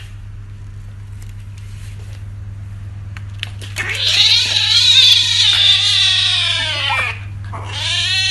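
A kitten meowing loudly while begging for food: one long meow of about three seconds that swells and falls away at the end, then a second shorter meow near the end. A steady low hum runs underneath, with a few light clicks before the first meow.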